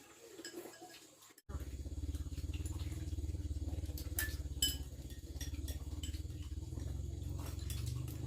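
A small engine running steadily with a rapid low pulsing. It starts abruptly about a second and a half in, with a few sharp clicks over it.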